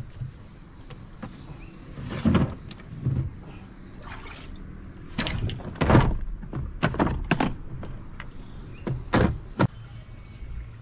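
Irregular knocks and thumps of fishing gear, a plastic tackle box and an outboard fuel tank, being lifted out of a wooden boat and set down on wooden jetty planks, about ten in all, the loudest about six seconds in.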